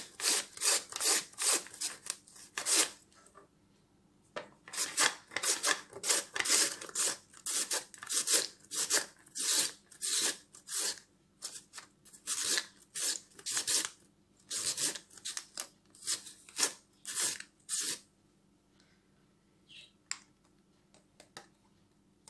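A carrot drawn back and forth over a plastic julienne slicer with metal teeth, giving a rasping scrape on each stroke, about two strokes a second. The strokes pause briefly about three seconds in, and stop a few seconds before the end, leaving a few faint clicks.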